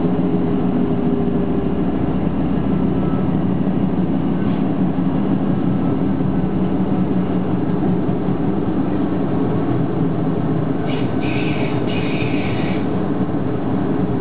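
Interior running noise of a DB class 628.2 diesel multiple unit under way: the underfloor diesel engine's steady hum and the rumble of the wheels on the track, heard from the passenger compartment. The engine hum is strongest for the first few seconds, then sinks into the rolling noise. A few brief high-pitched sounds come about three seconds before the end.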